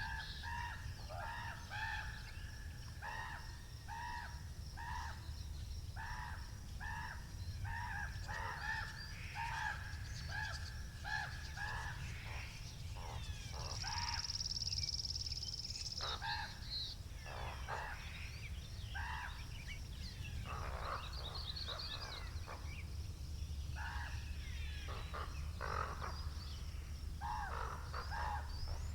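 Birds calling: many short, repeated pitched calls throughout, with a steady high trill for about two seconds midway. A steady low rumble of wind lies under the calls.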